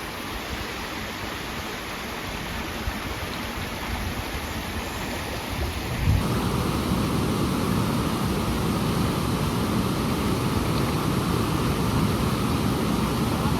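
Steady rushing of a waterfall, getting louder and deeper about six seconds in.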